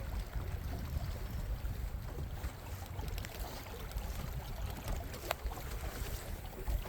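Wind rumbling on the microphone out on the water, with a single sharp click a little over five seconds in.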